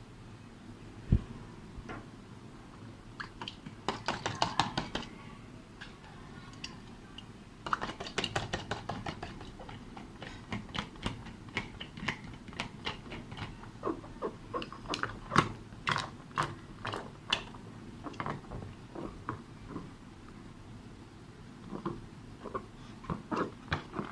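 Slime being handled and squished by hand, giving irregular runs of sticky clicks and crackles, with a single thump about a second in.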